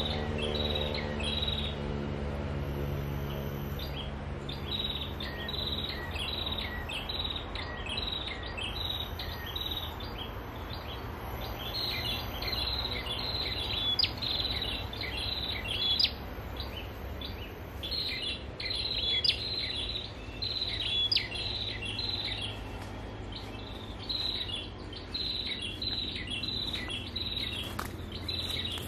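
Prinia (perenjak) song played from a Bluetooth speaker as a lure: bright chirping phrases repeated over and over, over a steady low rumble of road traffic. A vehicle's engine fades away in the first few seconds.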